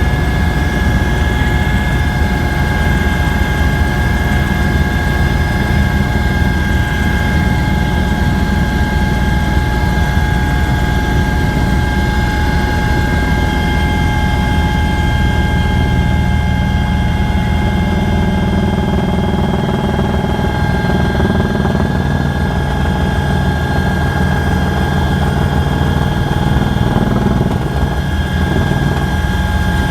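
Helicopter in flight heard from inside the cabin: a steady, loud drone of engine and rotor with a constant high whine over it.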